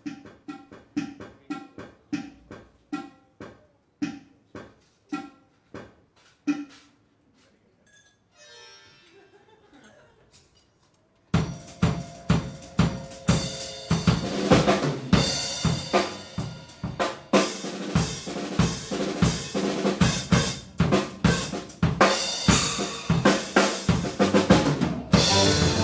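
Electronic hand-percussion pad struck by hand, a run of pitched, ringing hits that thin out and fade, then a faint fluttering sound. About eleven seconds in, a jazz-fusion band comes in all at once with a loud drum kit.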